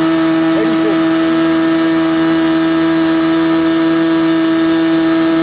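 Model airplane engine on a SIG Kadet LT-40 running on the ground at a steady speed during its break-in: a loud, steady, high-pitched drone.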